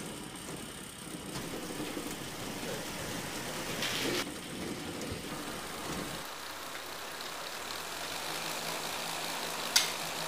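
Small electric motor driving a homemade cardboard flour mill through a rubber-band belt, running steadily while it grinds grain. A sharp click near the end.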